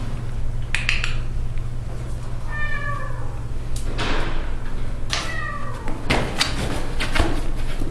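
Young kitten meowing: two short, high-pitched mews that fall in pitch, about two and a half and five seconds in, with scattered clicks and scratchy noises between them over a steady low hum.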